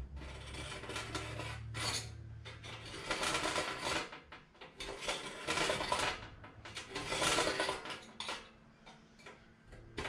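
Aluminium checker plate sheet being handled and fitted against the motorcycle: a series of metallic scrapes and rattles, each lasting up to about a second.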